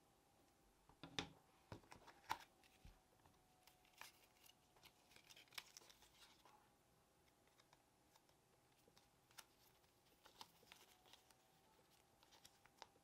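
Faint rustling and light clicks of paper and cardboard packaging being handled, with the sharpest clicks about a second and two seconds in.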